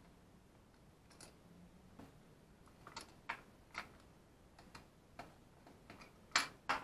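Small screwdriver and plastic toy-car parts clicking and tapping as screws are undone. The light clicks are irregular, about one a second, with two sharper clicks near the end.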